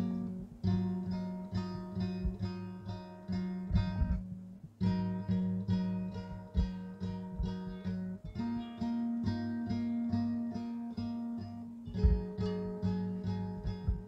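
Background music on strummed acoustic guitar: held chords struck again and again, changing every couple of seconds, with two short breaks.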